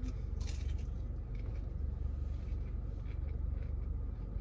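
A bite into a crispy spicy chicken nugget crunches about half a second in, followed by quieter chewing clicks, over a steady low hum.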